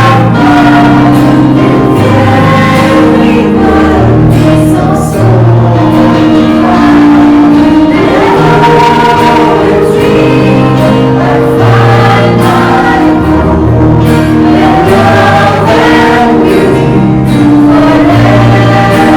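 Choral music: a choir singing over held chords, with the bass note stepping to a new pitch about once a second.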